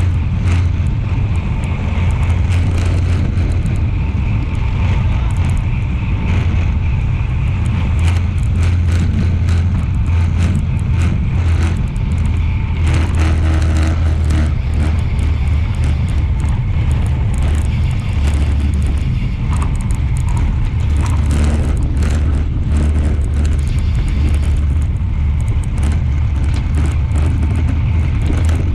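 Wind buffeting an action camera's microphone on a road bike at about 40–48 km/h, a steady low rumble, mixed with tyre noise on the paving and frequent sharp clicks and knocks from the bike jolting over the surface.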